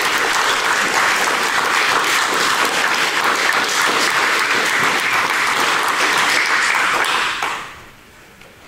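A group of people applauding with steady, dense clapping that dies away about seven and a half seconds in.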